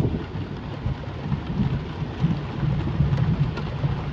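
Rain falling steadily, with a low rumble of thunder underneath.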